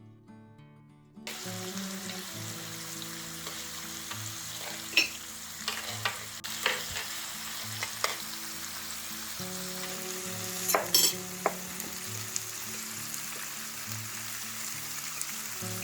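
Sizzling, crackling hiss from a fireplace where a whole chicken is roasting, starting about a second in, with a handful of sharp clicks and knocks, the loudest near the middle. Background music plays underneath.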